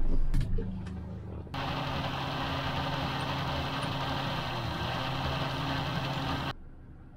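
Small boat's engine running at low speed, a steady hum under a broad hiss, which starts and cuts off abruptly.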